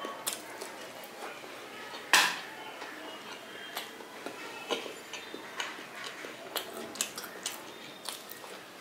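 Close-miked eating of steamed chicken momos by hand: scattered short mouth clicks and smacks of chewing, with one much louder sharp click about two seconds in.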